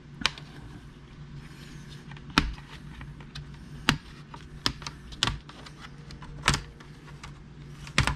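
Scattered sharp plastic clicks and knocks, about seven spread irregularly, from prying at and handling a Lenovo IdeaPad 320 laptop's plastic case to pop its sides open, over a low steady hum.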